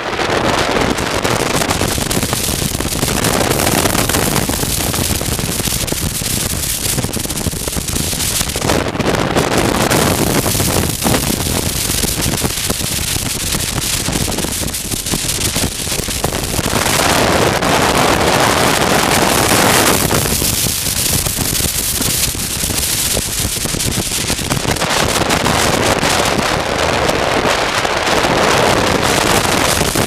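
Wind buffeting the microphone of a helmet-mounted camera on a moving motorcycle, a loud rushing noise mixed with the motorcycle's running, swelling and easing every few seconds.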